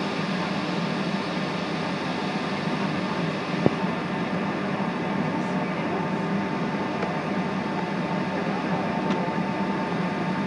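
Steady cabin noise inside a Boeing 757 taxiing onto the runway, engines at low thrust with a constant hum. A single sharp click comes a little under four seconds in.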